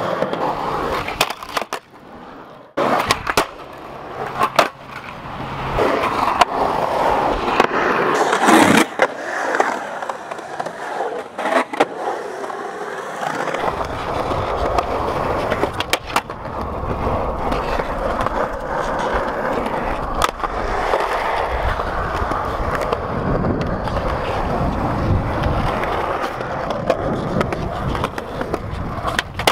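Skateboard wheels rolling on cement, with sharp clacks of the board striking the concrete. About halfway through, a steady low rolling rumble takes over.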